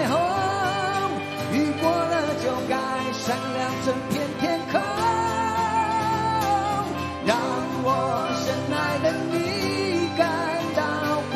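Live band music: a male lead vocal sings a melody with long held, wavering notes over electric and acoustic guitars, keyboards and drums.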